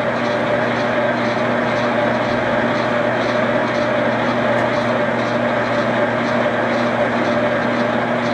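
Hobart V1400 planetary floor mixer running in fourth, its top gear: a steady motor and gear-drive hum, with a faint tick repeating about twice a second.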